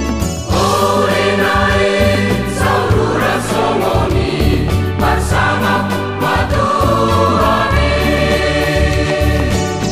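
A church choir singing a wedding song in parts, with a steady low accompaniment.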